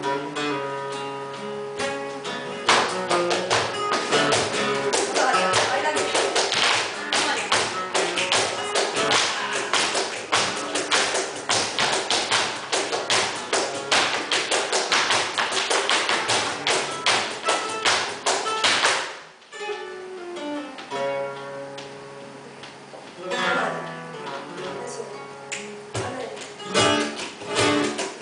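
Flamenco seguiriya on acoustic guitar, with fast, dense percussive strikes from the dancer's footwork and the cajón through most of it. About nineteen seconds in the strikes break off, leaving the guitar nearly alone. A few seconds later they come back.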